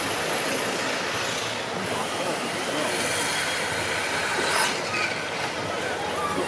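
Electric motor and gearbox of a radio-controlled scale crawler truck whining steadily as it creeps up concrete steps, with a brief louder scrape about two-thirds of the way through.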